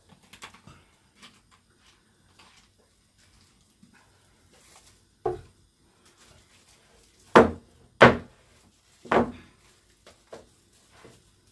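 Kitchen-table handling noises: a few sharp knocks and thuds, the loudest three close together about seven to nine seconds in, with faint small clicks between.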